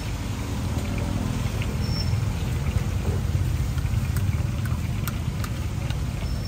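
Batter-coated bananas deep-frying in a wok of hot oil: a steady sizzle with scattered crackles and a few sharp ticks in the second half, over a low rumble.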